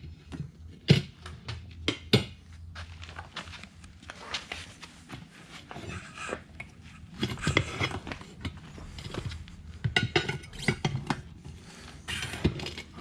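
Metal hand tools clinking and knocking against a wheel and each other during ATV tire work, in irregular sharp clanks and scrapes.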